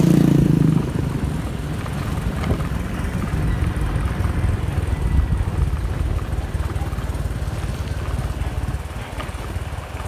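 Motorcycle engine running as it rides along a road, under a low rumble of wind noise on the microphone. The low sound is strongest in the first second.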